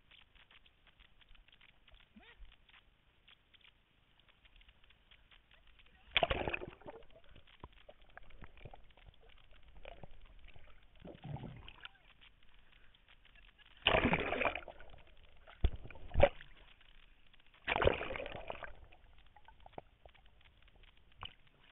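Water sloshing and gurgling around a camera dipping in and out of a river, as a German wirehaired pointer swims close by. There are three loud bursts of splashing, about 6, 14 and 18 seconds in, and two sharp knocks just after the second one.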